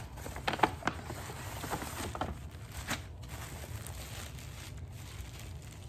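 Plastic mailer bag crinkling and rustling as it is handled and opened. There are several sharp crackles in the first three seconds, then quieter rustling.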